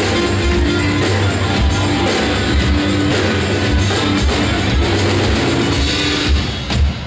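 Loud rock music with a driving drum kit and guitar, thinning out slightly near the end.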